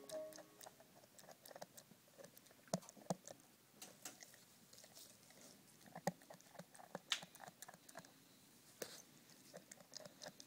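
Pit bull chewing at his own toenails: irregular clicks and crunches of teeth on the nails, with a few sharper snaps.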